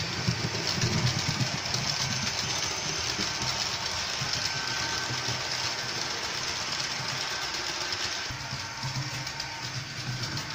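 Model train running along the layout track: a steady rumble of wheels and motor that eases off somewhat near the end as the train moves away.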